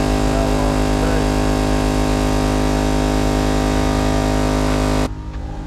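12-volt portable air compressor running steadily at full load while it inflates a freshly plugged tire, then stopping suddenly about five seconds in.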